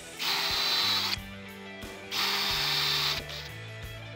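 Battery drill boring pilot holes into plywood, in two bursts of about a second each.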